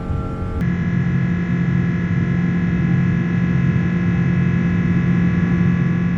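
Airliner cabin noise inside a Boeing 777-300 with the engines running: a steady rushing roar with a constant low hum and a higher engine whine. The sound changes abruptly about half a second in, then holds steady.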